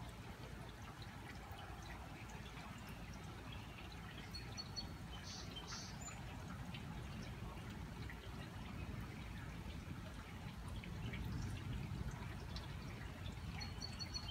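Rainwater dripping and trickling after a thunderstorm over a steady low rumble, which swells slightly near the end; a bird chirps a few times in the middle.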